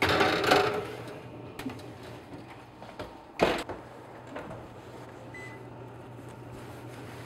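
Round metal cake pans set onto an oven's wire racks: a scraping metal clatter in the first second and a sharp knock about three and a half seconds in, over a steady low hum.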